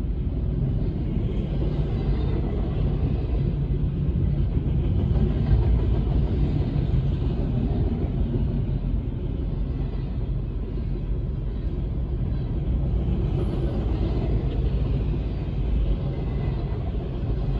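Double-stack intermodal freight train's loaded well cars rolling past close by: a steady, continuous rumble of wheels on the rails.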